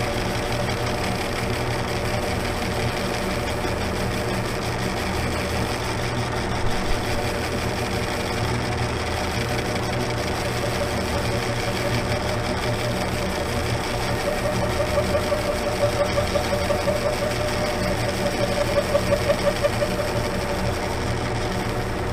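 Metal lathe running with a steady hum, its cutting tool facing a 1018 steel die. In the second half a pulsing tone rises and falls a few times a second.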